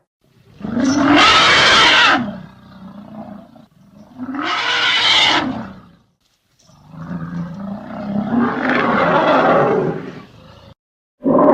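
Vintage elephant sound-effect recordings: three trumpeting calls with short gaps between them, the third the longest, and another call beginning at the very end.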